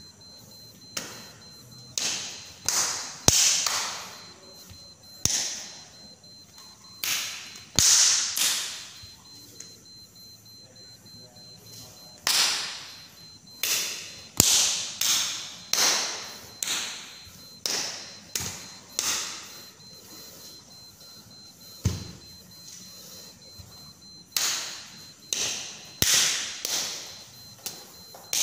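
Sharp slaps from a silat practitioner's bare hands striking his palms and body, about two dozen in irregular clusters, each ringing briefly in a hard-floored room. One duller thud comes a little past the middle.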